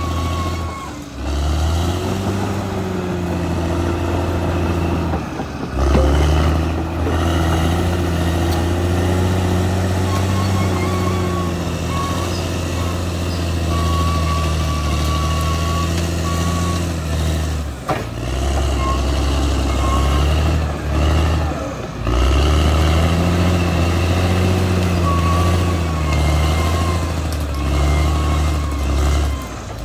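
Caterpillar D6R XL bulldozer's diesel engine running under load, its pitch rising and falling as it works, with a high whining tone coming and going.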